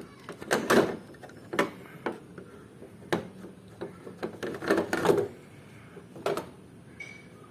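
Irregular clicks, knocks and short clatters of hard parts being handled and fitted back into a Honda Civic car door, loudest about a second in and again around five seconds in.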